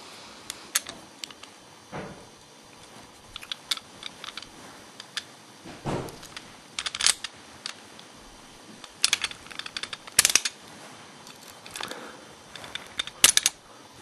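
Ace Hardware disc-detainer padlock being picked with a feeler pick: irregular metallic clicks and ticks of the pick working the discs, coming in small clusters, the loudest about a second before the end.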